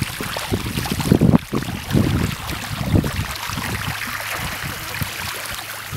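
Wind buffeting the microphone with irregular low thumps, easing after about three seconds, over small waves washing up on the beach.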